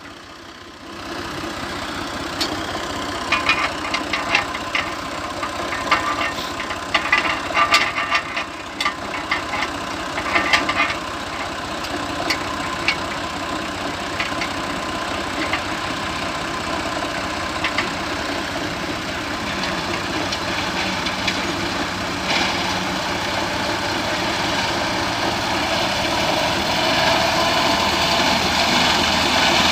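Engine of a hay-mowing machine running steadily, with scattered sharp clicks and rattles for the first ten seconds or so; the drone grows a little louder toward the end.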